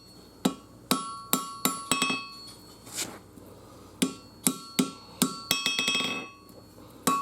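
Hand hammer striking hot 5160 steel on an anvil, the anvil ringing after each blow. The blows come in short runs with brief pauses, and a quick string of lighter taps comes a little past the middle.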